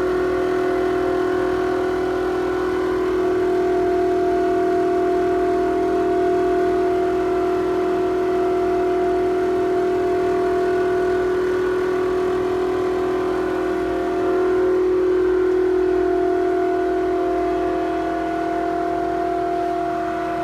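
Toshiba toilet ventilation fan making a loud abnormal noise that echoes: a steady, pitched whining drone with several overtones, and higher tones that fade in and out.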